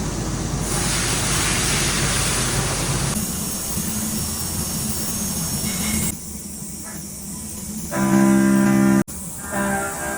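Steady hissing machine noise with a low rumble, typical of a CNC machine cutting with coolant spray. About six seconds in it gives way to plucked guitar music, which briefly cuts out near the end.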